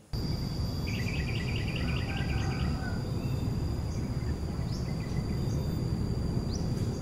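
Outdoor nature ambience: a steady low background rumble with a continuous high insect tone, a rapid pulsing insect trill about a second in, and a few short bird chirps.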